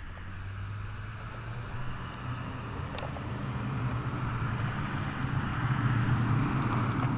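A road vehicle running steadily, engine hum and tyre noise growing gradually louder.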